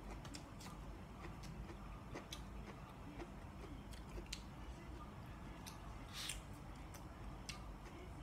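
Quiet eating sounds: a person chewing, with scattered small mouth clicks and smacks and a short rustle about six seconds in.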